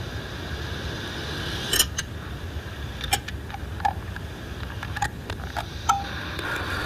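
Steady low hum and hiss of a sermon recording, with about seven scattered sharp clicks and knocks between about two and six seconds in.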